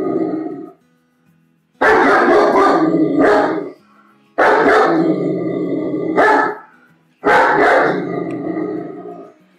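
German Shepherd barking in loud bouts of about two seconds each, several barks close together in every bout. After the tail of one bout at the start, three more follow at a regular pace.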